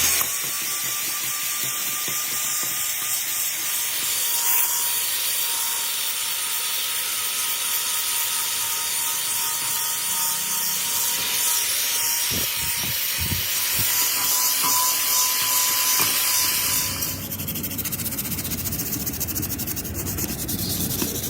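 Steady hissing, rubbing workshop noise with a faint steady tone, changing about 17 seconds in to a buzzier, lower, rapidly pulsing texture.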